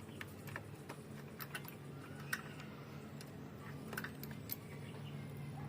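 Light, scattered clicks and small metallic rattles of wiring and tools being handled, over a steady low hum.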